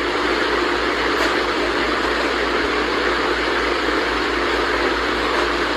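Steady, even rushing noise with a faint constant hum beneath it, unchanging throughout.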